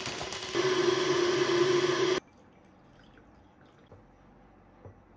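Hot water pouring from a kettle into a glass over a teabag, stopping abruptly about two seconds in. After that come a few faint light taps.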